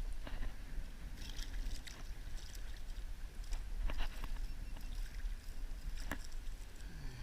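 Scattered small knocks and splashes of water around a fishing kayak, over a steady low rumble of wind on the microphone.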